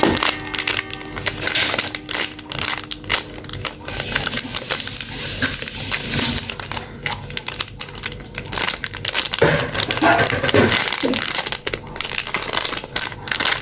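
Crinkling and crumpling as squishy toys are handled and squeezed, an irregular crackle. Faint background music plays in the first few seconds.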